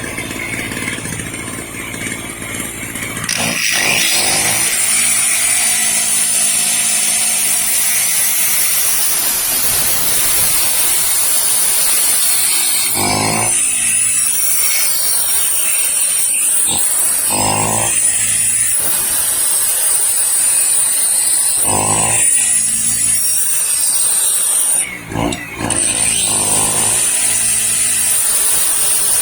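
Electric drill of about 700 watts running from a small portable generator, with the generator's engine running under heavy load; the drill starts a few seconds in and runs steadily with a high whine and several short surges. Near the end the sound cuts out for about a second and comes back, as the overloaded generator's protection shuts off the power and restores it.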